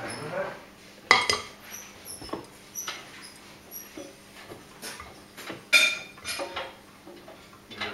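Miele Navitronic front-loading washing machine tumbling a load of work clothes in its drum, with irregular clinks and knocks; the two loudest come about a second in and just before six seconds.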